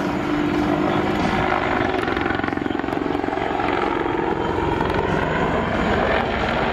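Boeing AH-64D Apache attack helicopter in flight, loud and steady: the rapid beat of its main rotor over the whine of its twin turboshaft engines.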